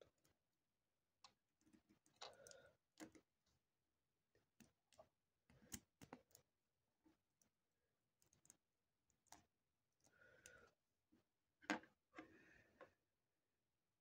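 LEGO Technic plastic connector pieces clicking and snapping together as they are pressed and turned by hand: scattered irregular clicks with a few short bursts of plastic rubbing, the loudest snap about two seconds before the end.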